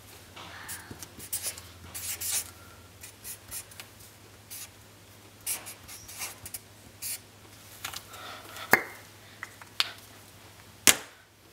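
Felt-tip marker writing on a sheet of paper: a run of short scratchy strokes, a few with a faint squeak. Three sharp clicks near the end.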